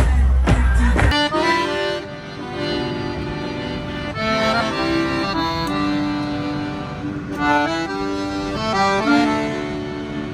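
Loud music with heavy bass and a voice cuts off abruptly about a second in. It gives way to instrumental music: held chords under a melody that steps from note to note.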